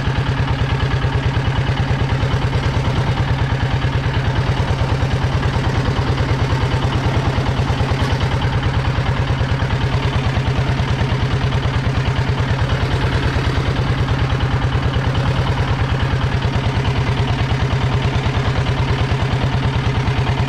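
A boat engine running steadily at a constant low speed, with a fast, even beat.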